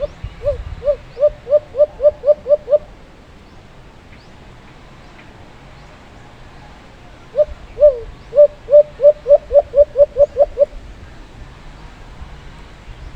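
Alimokon dove cooing: a quick run of about eight short coos, then after a pause a longer run of about a dozen coos that speeds up.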